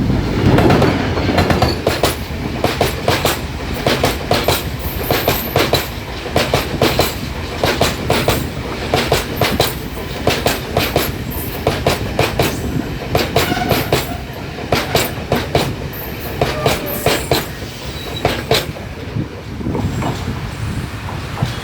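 Express passenger train passing at speed, its coaches' wheels clattering in quick pairs over rail joints over a low rumble. The clatter thins out near the end as the train goes by.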